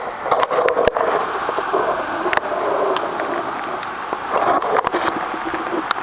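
Mountain bike rolling and splashing over a wet, stony road: a dense rushing noise broken by irregular rattles and knocks from the bike.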